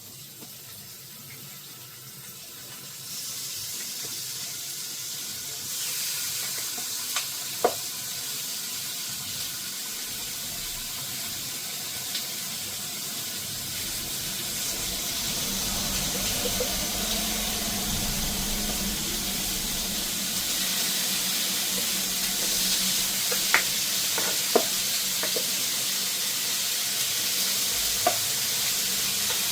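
Chicken strips sizzling in hot fat in a pan. The sizzle grows louder in steps a few seconds in, as more pieces go in, and keeps building. There are a few light knocks of a utensil.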